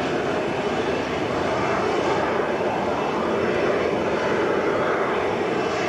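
McDonnell Douglas DC-10 trijet's jet engines running at taxi power, a steady even engine noise as the airliner taxis.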